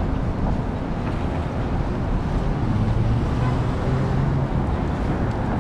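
Steady city street traffic noise: a continuous rumble of vehicle engines, with a low engine hum standing out briefly in the middle.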